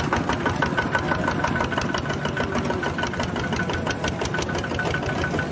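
Single-cylinder diesel engines of two-wheel walking tractors running under load as they haul trailers of rice sacks, with a rapid, even knocking beat.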